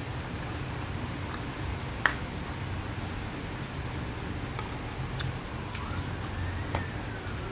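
Fried rice cooking in a nonstick frying pan: a steady sizzling hiss over a low hum, with a few sharp clicks. The loudest click comes about two seconds in, and another near the end as a spatula stirs the rice.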